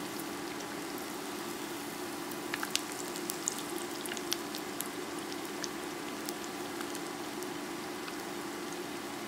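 Chickpea burger patties shallow-frying in hot oil in a skillet: a steady sizzle with scattered pops and crackles, over a steady low hum.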